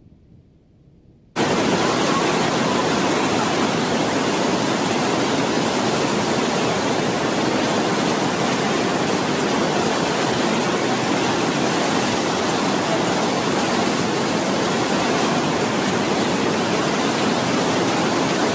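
Loud, steady rushing of a torrent of muddy floodwater pouring over boulders in river rapids, starting abruptly a little over a second in after a faint low rumble dies away.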